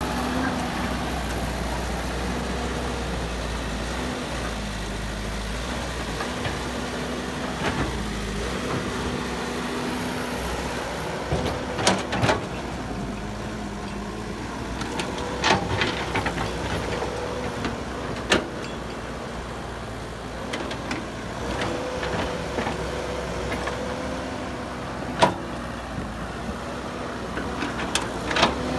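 Heavy machinery engines running during excavator loading of a dump truck, the engine note shifting up and down in pitch. Occasional sharp clanks come through, about four standing out.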